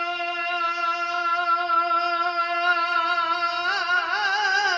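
A man's voice holding one long sung note of a naat, an unaccompanied devotional chant, steady in pitch and then wavering into ornaments about three and a half seconds in.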